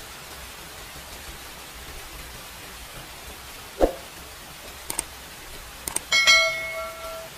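A short slurp of broth from a metal spoon about four seconds in, then a metal spoon clinking against the bowl a few times, the last strike ringing for about a second. A steady hiss runs underneath.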